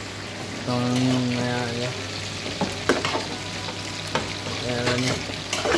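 Chicken pieces sizzling as they fry in hot oil in a pan, while a metal spoon stirs pancit noodles in an aluminium pot, clinking sharply against the pot a few times. A person's drawn-out voice sounds about a second in and again near the end.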